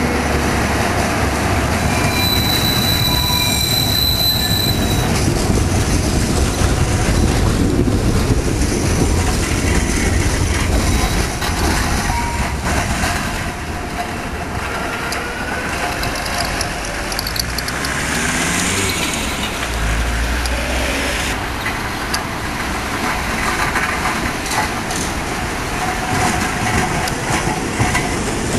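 Vintage type UV tram running on street track: the wheels give a high squeal a few seconds in, then the cars rumble past with sharp clacks over the rail joints and points.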